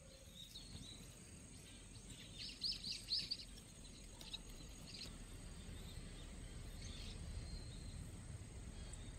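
Faint outdoor background: a low steady rumble, with a quick run of four or five short high chirps about two and a half seconds in and a few single chirps later.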